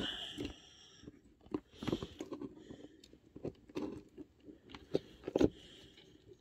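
Small plastic and metal parts of an Axial SCX24 crawler clicking and knocking as the motor and transmission are pushed into the chassis and the front drive shaft is worked into line. The knocks come at irregular moments, the loudest near the start and a pair about five seconds in.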